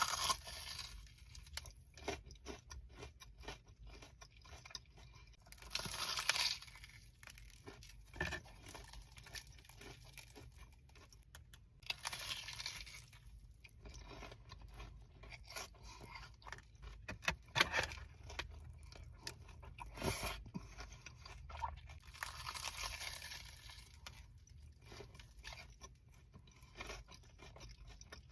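Close-miked crunching bites into a potato-coated Korean corn dog and chewing, with a few louder crunchy bites among many small crackles.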